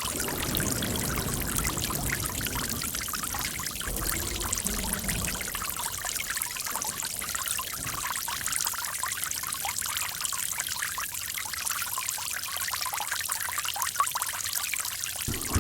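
Running water trickling and splashing steadily, with many small splashes and a fuller, deeper rush in the first few seconds.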